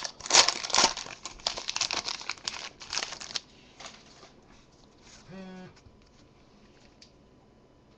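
Crinkling and tearing of a trading-card pack wrapper as it is ripped open and crumpled, lasting about three and a half seconds, then quiet apart from a brief hum from a voice about five seconds in.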